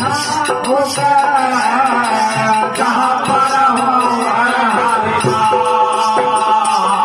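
Man singing a devotional bhajan into a microphone, with small brass hand cymbals (manjira) struck in a steady beat and other instruments behind.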